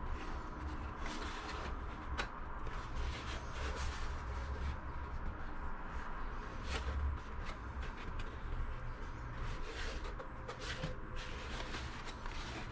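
Irregular rustling and clicking handling noises, scattered short clicks over a steady low hum.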